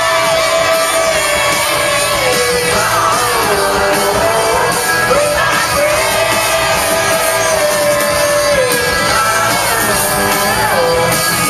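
A live rock band plays loudly, with a sung melody of long held notes that slide down in pitch, heard from within the audience.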